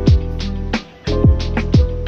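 Background music with a steady beat: deep drum hits that drop in pitch, about two a second, over held chords.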